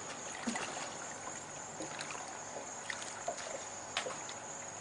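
Quiet ambience on a small boat: a steady hiss with a faint high-pitched whine throughout, light water sounds against the hull and a few scattered small clicks.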